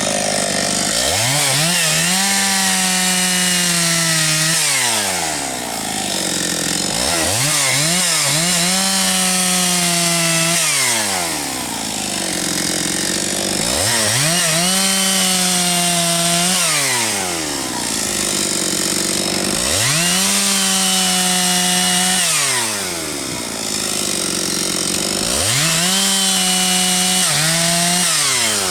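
Husqvarna 272XP two-stroke chainsaw cutting firewood. It is revved up to a high held pitch through each cut, then drops back toward idle, five times about six seconds apart.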